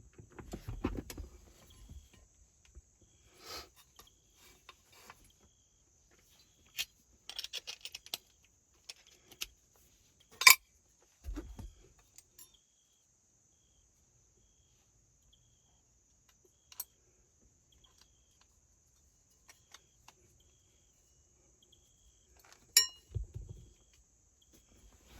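Intermittent metallic clicks and clinks of small parts and hand tools being handled while working in a steering column, with a sharp click about ten seconds in and another near the end, each followed by a low knock. A steady high chirring of crickets runs underneath.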